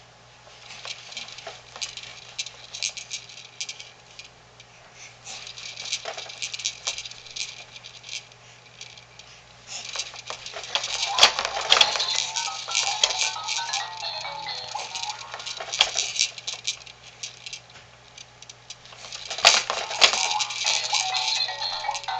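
Plastic toys on a Fisher-Price Rainforest Jumperoo baby jumper rattling and clicking as the baby handles them, including the bead-filled rattle ball on the tray. The jumper's electronic tune plays twice: once from about ten seconds in, and again near the end.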